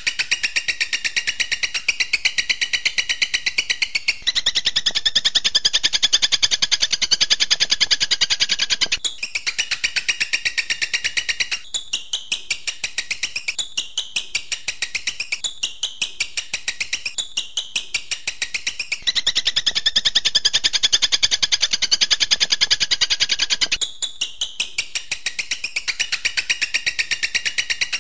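Recorded songbird song of the kind used as a tutoring track for cage birds: rapid-fire, high repeated notes, about four to five a second. The phrase switches abruptly to a different pattern every few seconds.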